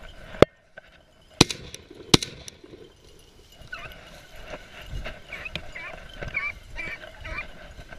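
Three shotgun shots in quick succession, under a second apart, the first the loudest. From about halfway through, beagles bay on the chase in short, wavering calls.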